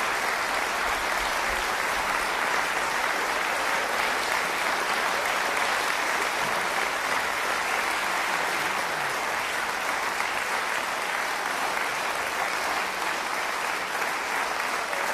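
A large theatre audience applauding steadily, a dense even clapping with no let-up.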